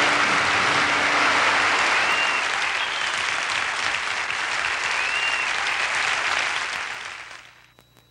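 Concert audience applauding loudly and steadily after a song, with a couple of short whistles. The applause fades out near the end.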